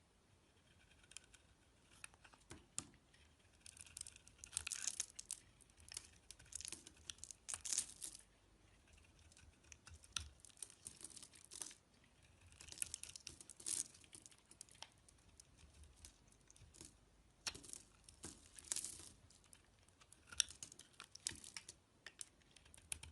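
A knife cutting into a bar of soap: irregular runs of dry scraping and crackling as shavings come away.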